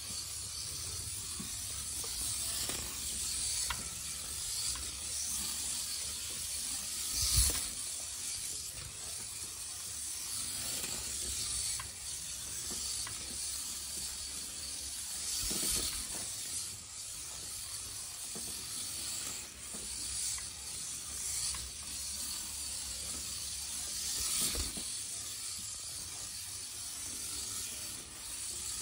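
HO-scale slot car running around a plastic track: the small electric motor and gears whir with a steady ticking rattle, and three louder clicks come about eight or nine seconds apart.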